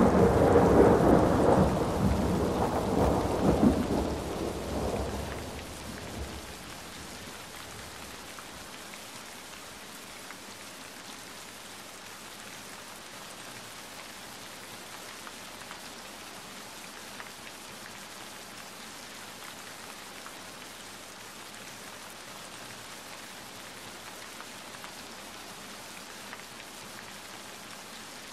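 A roll of thunder rumbles and dies away over the first six seconds or so, leaving steady rain falling.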